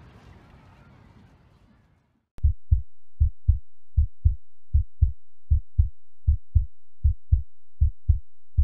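Heartbeat sound effect: pairs of low, dull thumps repeating steadily about 75–80 times a minute, starting about two and a half seconds in after faint outdoor background fades out.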